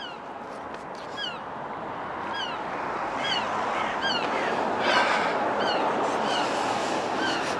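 Seagulls calling again and again, short falling cries about two a second, over a steady rushing background noise that grows louder.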